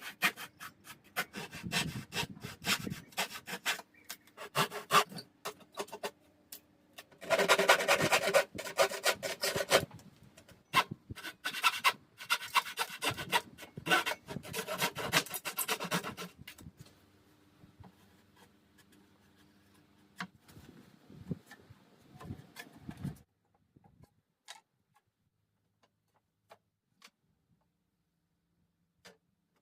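Pine wood being worked by hand with an abrasive, in runs of quick rubbing strokes with short pauses. The strokes stop about two-thirds of the way through, leaving only a few faint ticks.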